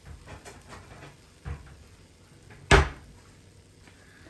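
A kitchen cupboard door knocking shut with one sharp, loud bang near the three-second mark, after a few light clicks and a softer knock about a second and a half in.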